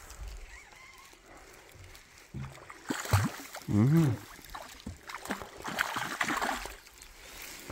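Hooked fish thrashing and splashing at the water's surface beside the boat as it is pulled in, with splashes about three seconds in and again near the end. A person gives a short exclamation in the middle.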